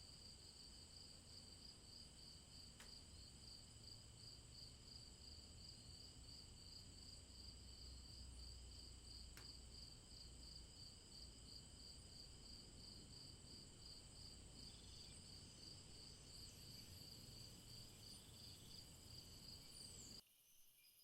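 Faint night-time rainforest insect chorus: several steady high buzzing tones at different pitches, one of them pulsing about two or three times a second, over a low rumble. Near the end the rumble cuts off suddenly and the chorus changes.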